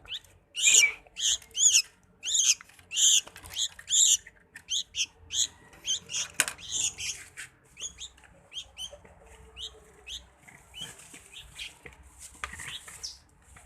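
A small pet songbird giving rapid, repeated chirping calls, loud and close together for the first few seconds, then softer and more spaced out. A single sharp click about six seconds in.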